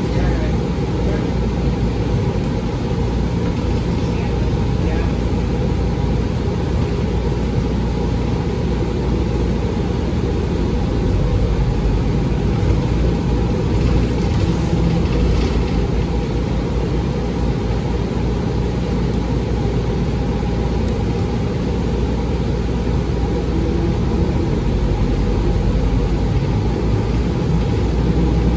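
Steady running noise heard from inside a New Flyer XDE40 diesel-electric hybrid city bus on the move: a continuous low drive rumble with a faint steady whine.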